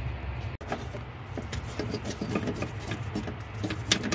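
A small brush scrubbing the dirty sheet-metal floor pan around a car's fuel pump access opening, in quick irregular scratchy strokes.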